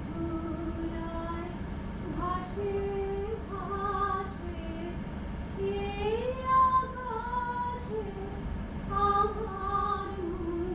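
A solo high voice singing a slow melody in long held notes, sliding up to a higher, louder held note about six seconds in, over a faint steady low hum.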